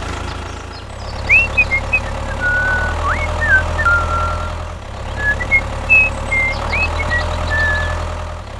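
Small motor of a DIY mini tractor running steadily, with a low hum. Short, high whistling chirps come over it in two clusters, about a second in and again about five seconds in.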